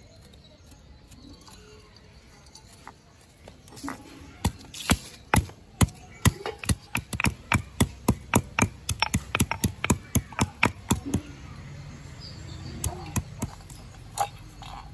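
Stone pestle pounding in a stone mortar: a run of sharp knocks, about two to three a second and quickening, lasting some six seconds from a few seconds in, with a few lighter knocks near the end.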